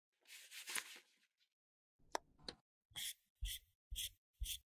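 Gloved fingers handling a small plastic lip gloss bottle: a soft rubbing at first, a sharp click about two seconds in, then five short plastic scrapes about half a second apart as the screw cap is twisted on.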